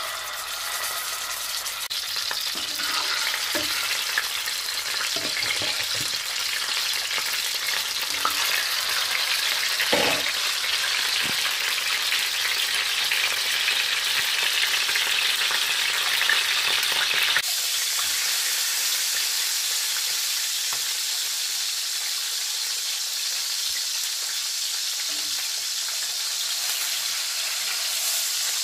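Fish pieces sizzling steadily as they fry in hot oil in a frying pan. A few short knocks of a metal slotted spatula against the pan come in the first half, the loudest about ten seconds in.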